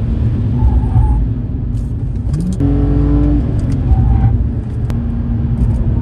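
Car engine and road noise heard from inside the cabin while driving fast on a race track, the engine pitch rising about two and a half seconds in as the revs climb.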